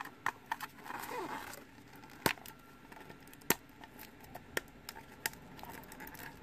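Fingers handling and picking at a clear plastic Ultra Pro UV baseball holder cube still wrapped in thin plastic film: scattered sharp clicks and taps on the hard plastic, with a short rustling scrape and a small falling squeak about a second in.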